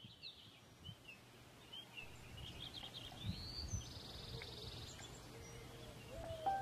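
Faint outdoor birdsong: scattered short chirps and whistles, with a brief buzzy trill a little past the middle, over a low steady hum.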